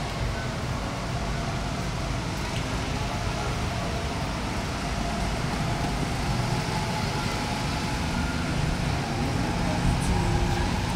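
Steady outdoor motor-vehicle noise, a continuous low rumble that grows slightly louder near the end.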